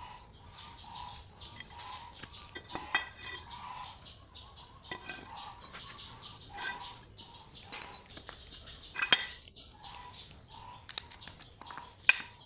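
Homemade hand-cranked rotary drilling rig at work: irregular metal clinks and knocks, with a short squeak repeating about twice a second.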